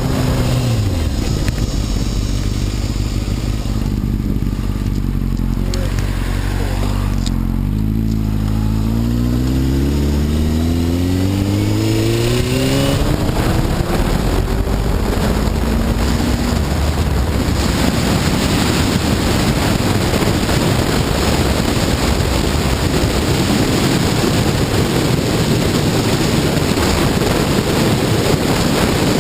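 Honda CBR954RR sport bike's inline-four engine slowing down, then accelerating with a rising pitch from about seven seconds in. After that it gives way to steady wind rush on the microphone at speed.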